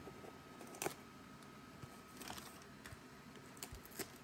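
A few faint, sharp clicks and light handling noise from a shipping package being opened by hand, the loudest click about a second in and another near the end.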